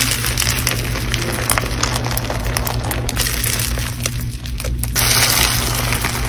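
Thick, airy pink slime squeezed and stretched by hand, its trapped air popping and crackling in dense fine clicks, getting a little louder about five seconds in.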